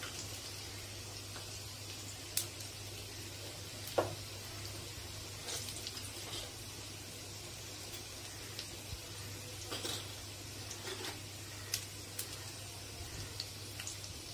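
Hot oil sizzling softly in a kadhai with a tempering of mustard seeds, cumin, garlic and green chilli, with scattered sharp pops, the loudest about four seconds in, over a low steady hum.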